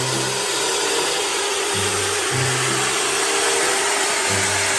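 A loud, steady rushing hiss that starts and stops abruptly, with a slow, low music bass line underneath.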